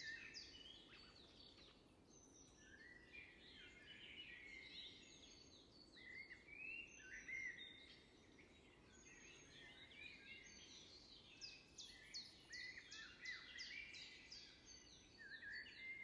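Faint songbird chorus: many short, high chirps and trills one after another, over a faint low hiss.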